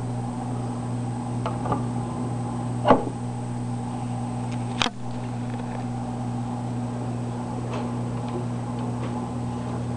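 Vacuum-tube amplifier of an early-1950s Firestone portable record player humming steadily while switched on and idle, with a few scattered clicks, the loudest about three seconds in and another near five seconds.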